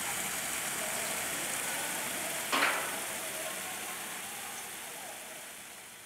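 Small waterfall splashing over rocks into a garden pond, a steady hiss of falling water, with a brief louder splash about two and a half seconds in. It slowly fades down toward the end.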